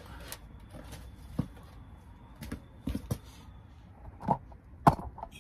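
Scattered clicks and knocks from hand tools and metal parts being handled, with a sharp knock near the end.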